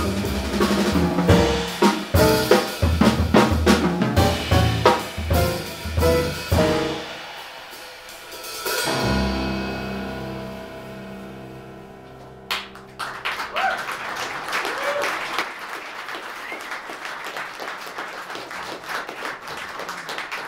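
A jazz quintet of alto and tenor saxophones, piano, double bass and drum kit ends a tune with a loud drum-driven passage of hits and fills, then a final held chord that dies away. About twelve seconds in, the audience starts to applaud.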